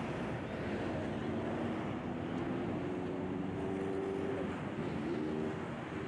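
Steady rushing outdoor background noise, with a distant engine's low drone coming up for a few seconds in the middle and fading again; no birdsong.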